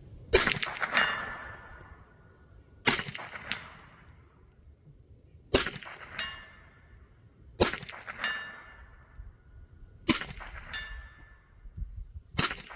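Six .22LR shots from a Marlin 795 semi-automatic rifle, a couple of seconds apart. Each shot is answered about half a second later by the clang of a mild-steel target being hit, which rings on briefly.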